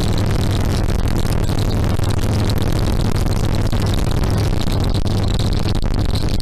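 Harley-Davidson Sportster XL1200R's 1200 cc air-cooled V-twin running with a steady, unchanging engine note, no revving, picked up by a microphone mounted behind the rear backrest.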